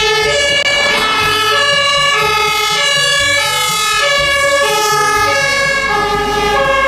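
German fire engine's two-tone siren (Martinshorn) sounding, alternating between a lower and a higher note about every half second. Beneath it is the low rumble of the truck's engine.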